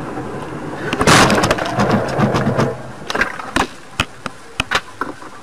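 A vehicle collision: a loud crash about a second in, followed by a scatter of sharp clicks and knocks.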